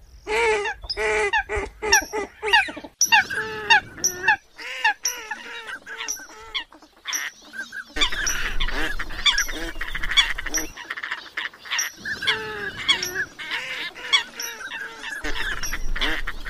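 Eurasian coots calling: repeated short, pitched calls, about two or three a second at first, thinning out for a few seconds, then coming thicker and overlapping in the second half.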